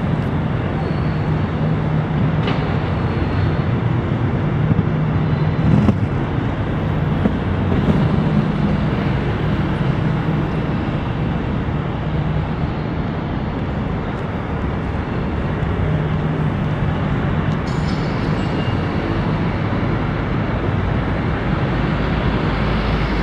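Steady city street noise: traffic on a wide avenue, with a constant low hum and no single event standing out.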